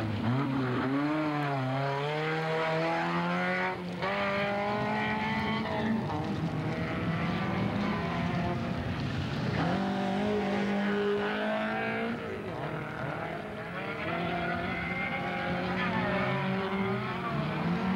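Rally car engines revving hard, the engine note climbing and dropping again and again as the cars accelerate and lift off through the gears.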